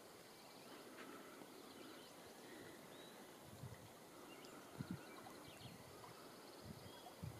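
Near silence: quiet outdoor ambience with faint, distant bird chirps and a few soft low bumps on the microphone.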